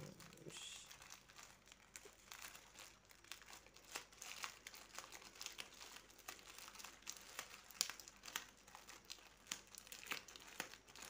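Quiet, irregular crinkling and crackling of a plastic courier mailer bag as hands work it open, with sharper crackles now and then, the loudest about eight seconds in.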